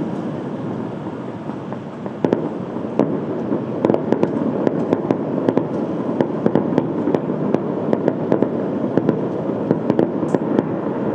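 Fireworks going off: a steady background rumble, then a rapid, irregular crackle of sharp bangs starting about two seconds in and continuing.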